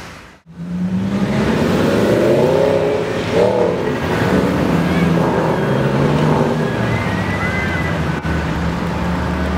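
Supercar engines revving and accelerating away through a road junction after a brief drop-out right at the start. The engine note rises and falls a couple of seconds in, then settles into a steadier drone.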